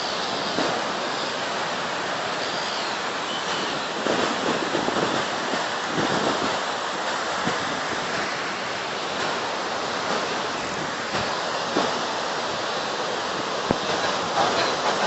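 Ocean surf breaking with strong wind, a steady wash of noise, with wind buffeting the microphone.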